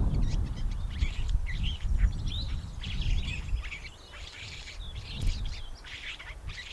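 Cape sugarbird singing: a rapid jumble of short, scratchy chirps and squeaky notes, over a low rumble that fades out about halfway through.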